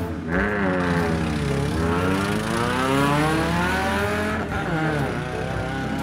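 Cartoon sound effect of a toy car's engine revving through a drift, its pitch sliding down and up again several times in long, smooth sweeps.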